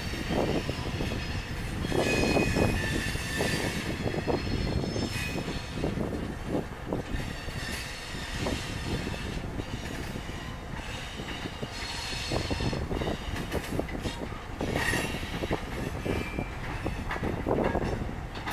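Loaded Herzog gravel train's hopper cars rolling slowly past at yard speed, wheels knocking and clacking irregularly over rail joints. A high wheel squeal comes and goes several times.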